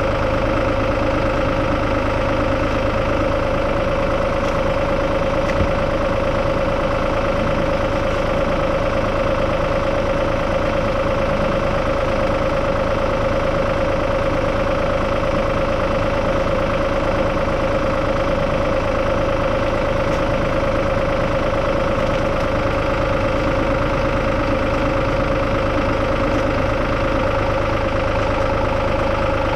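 Tractor engine running at a steady, unchanging speed, with a constant drone and whine.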